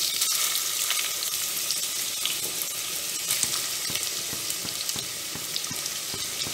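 Sliced onions sizzling in hot oil with green chillies: a steady hiss full of fine crackles, loudest as the onions go in during the first second, then easing slightly.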